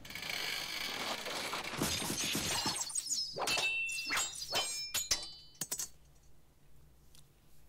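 Anime fight sound effects: a dense rushing whoosh, then a quick run of sharp metallic clinks and impacts with brief ringing, like thrown blades striking.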